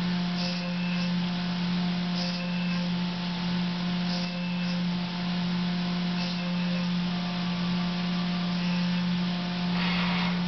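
Fadal CNC mill's spindle running steadily with a 1/8-inch three-flute endmill cutting humbucker keeper bars to length under flood coolant. It is a steady hum with a hiss, a faint higher tone that comes back about every two seconds, and a short burst of hiss near the end.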